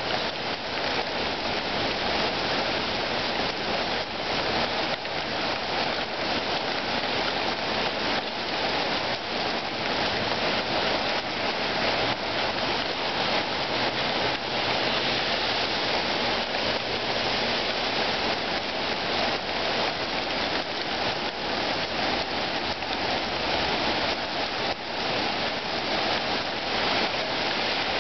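Heavy rain pouring steadily in a thunderstorm downpour, an even hiss peppered with many sharp drops striking close by.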